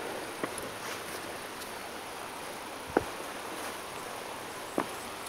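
Steady outdoor background hiss with a few sharp clicks, the loudest about three seconds in and another near the end.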